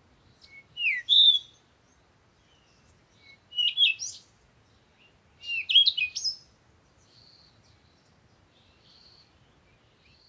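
A songbird singing short phrases of quick, slurred whistled notes, three phrases a couple of seconds apart, followed by fainter, thin high notes near the end.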